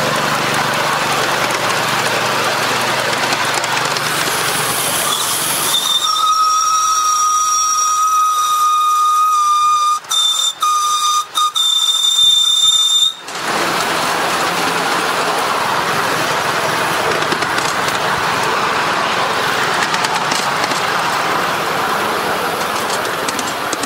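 Polly 5 5-inch gauge live-steam locomotive running, a steady noisy rush of exhaust and wheels on the rails. About six seconds in its steam whistle sounds a long blast, broken into a few short toots near the end, and stops about halfway through, when the running noise returns.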